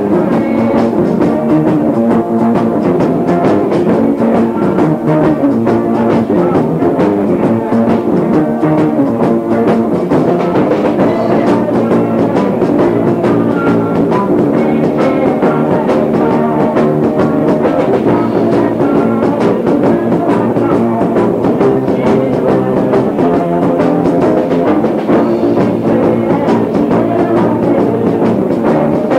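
A rock band playing live, with electric guitars, bass guitar and drums, on a lo-fi cassette recording made from down the hall on a faulty recorder. The vocals can't be heard over the band.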